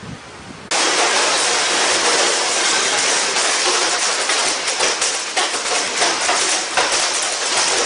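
Hailstones pelting a house, heard from indoors as a loud, dense rattle of countless small hits. It starts suddenly about a second in and keeps up steadily.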